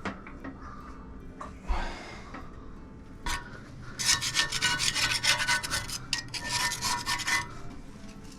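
A hand tool scraping rapidly against a hard surface, in quick rasping strokes that start about four seconds in and last for roughly three and a half seconds. A few short knocks come before them.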